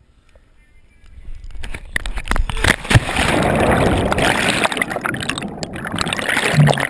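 Wind rushing over an action camera's microphone, growing louder during a cliff jump's fall, then a sharp smack as the jumper hits the lake about three seconds in. After it comes loud, muffled underwater churning and bubbling as he goes under.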